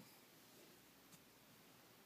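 Near silence: room tone with a faint steady hiss and one faint click about a second in, in the pause between snores.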